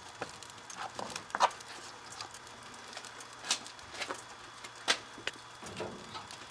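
Scattered sharp knocks and crackles from an open wood-furnace firebox as small chunks of firewood are set in around a can and the kindling fire burns, over a faint steady low hum.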